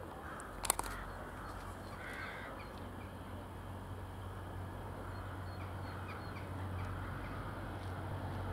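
A crow cawing a couple of times in the first few seconds over a low, steady rumble, with a few faint small-bird chirps. The rumble grows slightly louder near the end.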